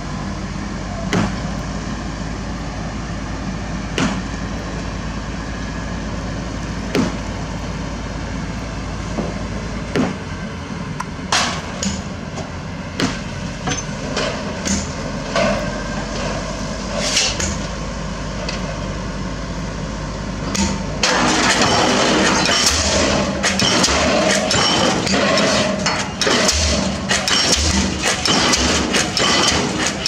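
Crawler crane engine running with separate sharp metal knocks every few seconds. About 21 s in, the diesel pile hammer starts firing: a loud, continuous run of rapid blows driving a concrete spun pile.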